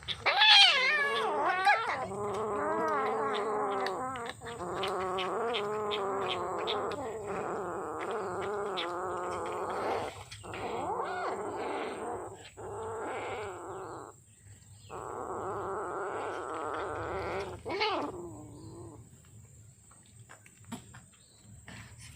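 Kitten yowling in long, wavering, drawn-out cries with a few short breaks, the first cry the loudest and highest; the cries fade out a few seconds before the end.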